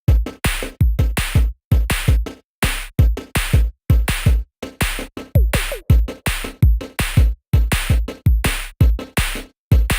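Electronic background music: a drum-machine beat with punchy kick drums and sharp snare hits, with brief silences between hits.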